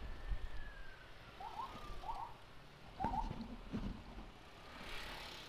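A faint siren wail falling slowly in pitch over about two seconds, followed by a few short chirps.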